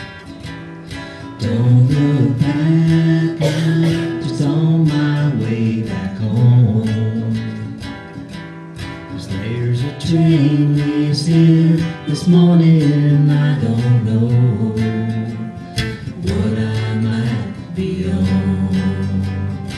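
Live acoustic guitar music: an instrumental passage of a country-folk song, strummed with a moving melody line.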